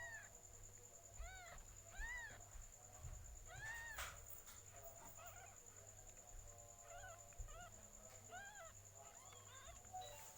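Newborn kittens mewing: a string of short, thin, high-pitched cries, each rising and falling in pitch, about one a second, faint.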